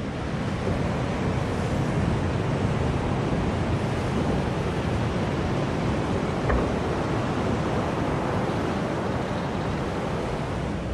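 Ocean surf breaking on a beach, a steady rush of noise mixed with wind on the microphone.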